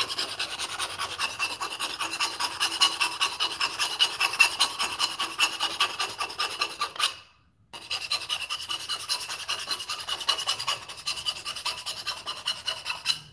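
Hand file with a rounded profile rasping in quick short strokes around the cut end of an aluminum pipe, deburring and chamfering the edge, with a faint metallic ring under the strokes. The filing stops for about half a second around seven seconds in, then resumes.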